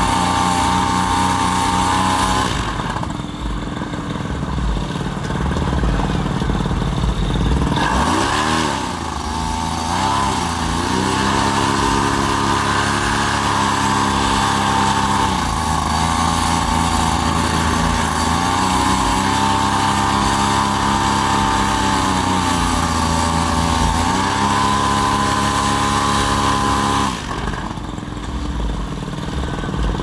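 Paramotor engine running behind the propeller cage, its pitch sagging and climbing back several times as the throttle eases and opens, then dropping lower near the end. Wind rumbles on the microphone underneath.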